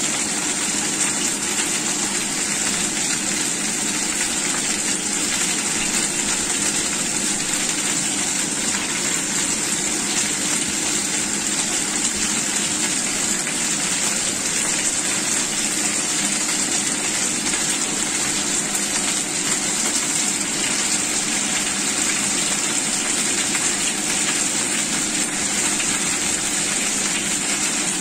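Chicken wings and potato cubes sizzling in oil in a frying pan: a steady, unbroken hiss, with a faint steady hum underneath.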